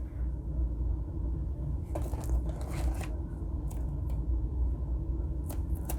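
Cardboard packaging being handled as the card box is opened: a few short scrapes and rustles, busiest between about two and three seconds in, over a steady low hum.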